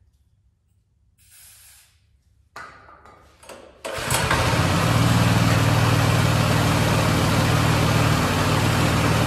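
Small single-cylinder gas engine on an air compressor, a Honda GX200 copy rated at 5.5 hp, being started. A short hiss (starting fluid) and a few rasping pulls on the recoil starter come first. About four seconds in the engine catches and then runs steadily.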